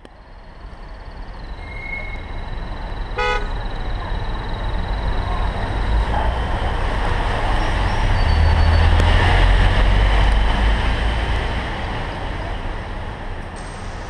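City street traffic fading in, with a short car horn toot about three seconds in. A vehicle passes close, its low rumble swelling to the loudest point around nine seconds before easing off.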